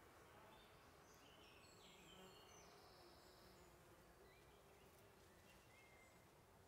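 Near silence: faint outdoor hiss with the faint buzz of common wasps (Vespula vulgaris) at their ground-nest entrance, and a few faint, short, high whistles.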